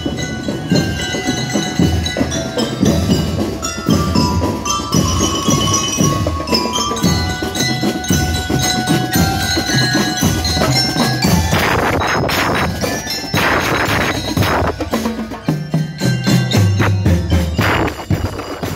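Drum and lyre corps playing on the march: bell lyres ring out the melody over a steady beat of snare and bass drums. A few loud crashes come near the middle and once more near the end.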